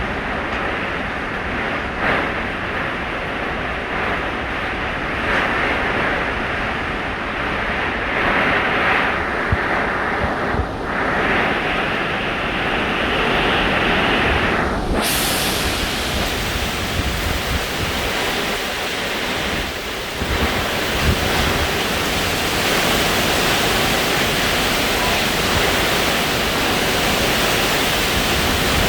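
Hurricane-force wind and heavy rain, with wind buffeting the microphone. About halfway through, the noise abruptly turns brighter and hissier.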